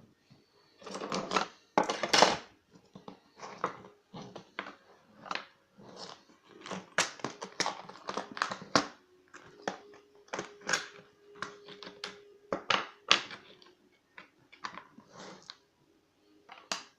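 Irregular clicking and clattering of small metal parts and tools as a Euro cylinder lock is handled and taken apart, loudest in the first few seconds.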